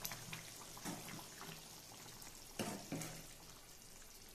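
Thick curry gravy bubbling and popping at a simmer in a nonstick pan, with a few soft knocks, one near the start and two more close together past the middle.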